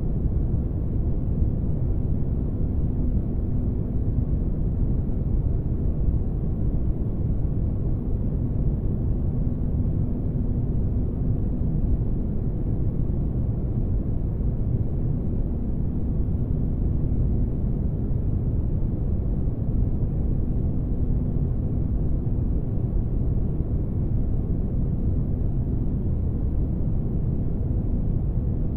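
Spaceship ambience: a steady, low engine-like rumble with a faint constant hum over it, unchanging throughout.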